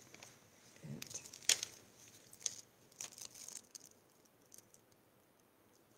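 Paper crackling and rustling as adhesive-backed paper letters are peeled off their backing strip and pressed onto a scrapbook page: a few short, sharp crackles in the first half, the loudest about one and a half seconds in.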